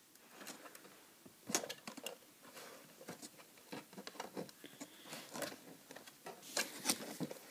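Handling noise from the model car's cardboard and plastic box packaging: scattered small clicks, taps and rustles, a little louder about a second and a half in and again near the end.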